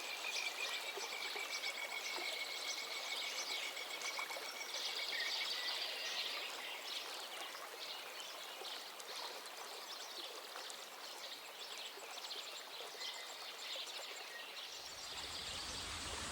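Steady rush of a waterfall's water, with birds chirping over it and a steady high trill during the first five seconds.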